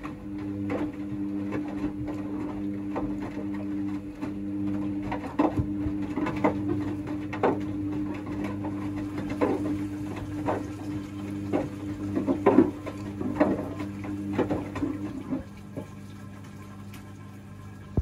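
Hoover DXA front-loading washing machine tumbling laundry during its second rinse: the drum motor hums steadily while wet clothes slosh and drop in the water about once a second. The drum stops a few seconds before the end, leaving a lower hum.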